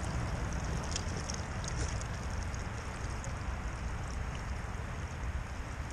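Steady rush of flowing creek water, with a low rumble of wind on the microphone.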